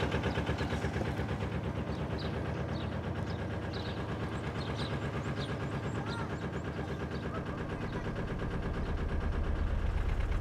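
A narrowboat's diesel engine running at cruising speed with an even, rapid chug. It grows a little louder over the last couple of seconds.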